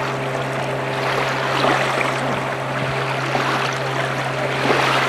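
Lake water lapping and splashing at the shoreline around a beached inflatable boat, over a steady low hum.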